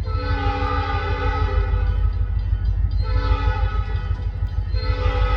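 Locomotive air horn sounding a chord of several notes in long blasts: one at the start, a second about three seconds in, and a third beginning near the end. A steady low rumble runs beneath.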